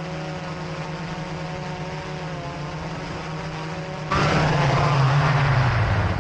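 Small multirotor drone's propellers buzzing steadily. About four seconds in, a louder rushing noise suddenly cuts in and the buzz sinks in pitch.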